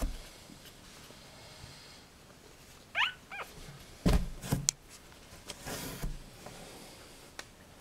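A week-old Yorkshire Terrier × Jack Russell puppy gives two short, high squeals about three seconds in. A few dull thumps follow, then some rustling.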